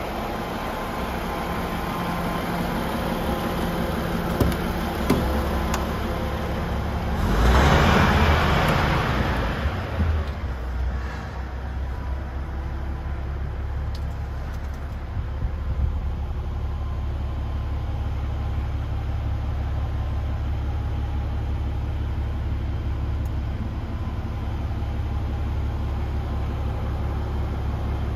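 DAF XF truck's PACCAR MX-13 six-cylinder diesel idling at about 600 rpm, a steady low rumble. A loud rushing noise swells and fades about seven to ten seconds in, with a few short knocks around it.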